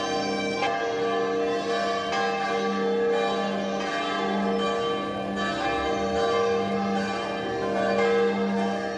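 Church bells pealing, one stroke following another so that the ringing overlaps without a break.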